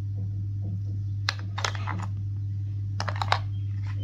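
Sharp plastic clicks and taps as the white Lenovo HT38 earbuds and their round charging case are handled: two clicks about a second in and a quick cluster of three near the end, over a steady low hum.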